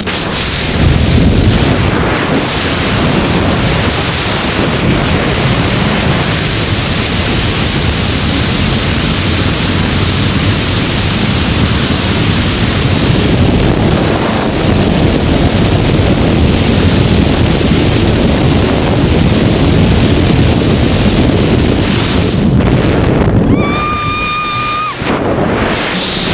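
Loud, steady wind rushing over the camera microphone, typical of a tandem skydive freefall. Near the end a single steady high tone sounds for about a second and a half.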